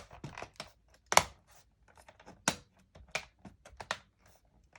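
Sharp plastic clicks and snaps as a removed plastic part of a Dell Latitude D630 laptop is pressed down and snapped back into place. The loudest click comes about a second in, and several more follow over the next three seconds.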